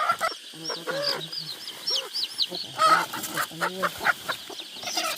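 Young chickens peeping and clucking, with many short high chirps in quick, overlapping succession and a few lower clucks.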